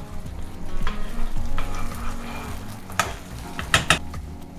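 Tomato sauce simmering and sizzling in a pan while a metal spoon stirs it, with a few sharp clicks of the spoon against the pan about three and four seconds in.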